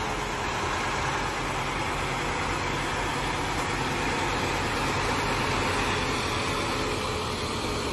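Heavy articulated truck pulling a long extended trailer, passing close by: a steady engine drone under a tyre hiss on wet tarmac. It gets a little louder in the middle as the truck nears.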